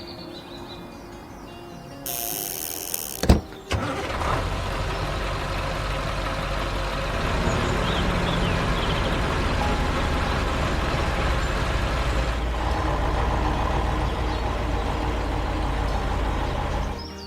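A vehicle engine, most like a truck's, running steadily with a low rumble. It is preceded by a short hiss and a sharp knock about three seconds in, and it fades away near the end.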